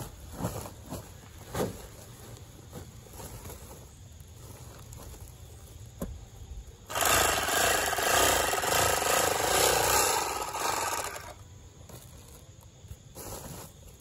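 Handheld electric bag-closing sewing machine running for about four seconds as it stitches shut the top of a woven polypropylene sack, starting about seven seconds in. Before it, brief rustles and knocks of the woven sacks being handled.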